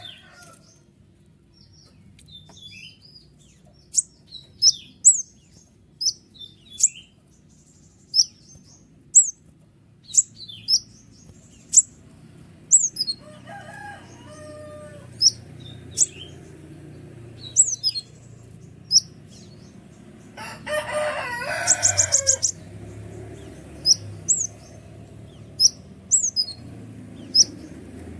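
Sunbird (kolibri ninja) singing: a string of sharp, high, downward-flicking chirps repeated every second or so, with a rapid high trill about three-quarters through. A lower, louder bird call, likely a chicken, breaks in about halfway and again about two-thirds through, over a faint low hum.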